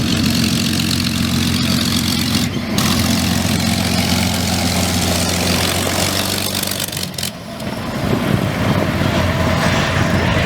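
Aircraft engine running steadily at low power, like idling on the ground, with a low even hum. The sound changes abruptly twice, about two and a half seconds in and again about seven seconds in, becoming a rougher, noisier rush.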